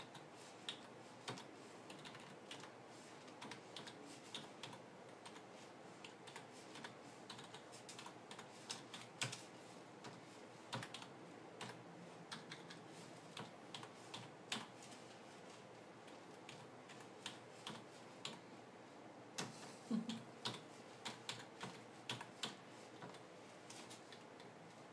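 Faint, irregular clicking of computer keyboard keys being typed, a few clicks at a time with short pauses, loudest about twenty seconds in.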